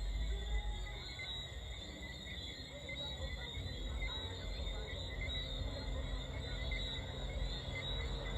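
Distant amplified outdoor music carried across water, heard mainly as a heavy, pulsing bass with little of the melody coming through. Night insects chirp steadily over it in a high, even trill.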